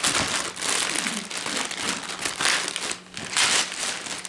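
Gift wrapping or a gift bag rustling and crinkling in irregular bursts as a present is unwrapped, with a short pause about three seconds in.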